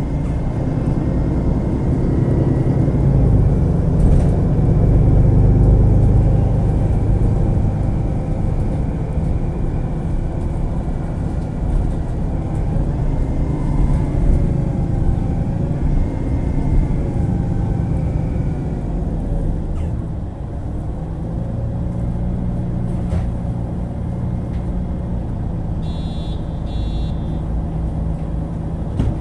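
MAN Lion's City G articulated bus (NG363, diesel) with a ZF EcoLife automatic gearbox, running under way: a heavy engine rumble with a drivetrain whine that rises and falls in pitch as the bus speeds up and slows down. Two short high beeps sound near the end.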